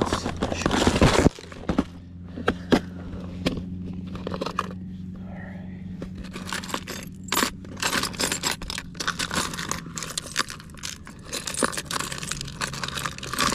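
Plastic tackle boxes and a clear lure tray being handled: a loud scraping shuffle in the first second, then scattered clicks and a dense clatter of plastic and metal lures and hooks jangling in the later part.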